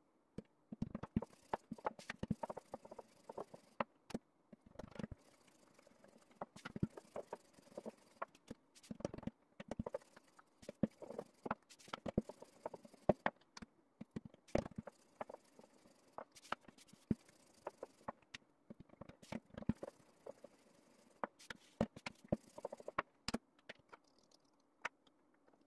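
Rolling pin rolling and knocking against a wooden table as baklava dough rounds are rolled out and stacked, with many irregular clicks and taps and a soft rustle of dough between them.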